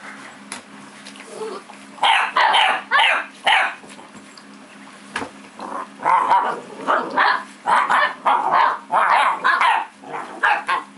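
Puppies barking and yipping in play, with short high-pitched barks: a few about two seconds in, then a quick run of barks through the second half.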